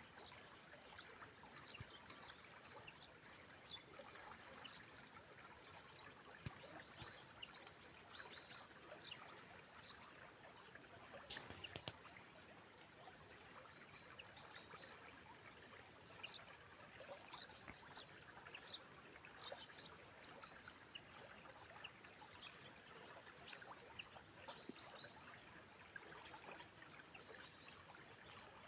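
Inhul river babbling and trickling steadily and faintly, with many small splashes. A single short knock about eleven seconds in.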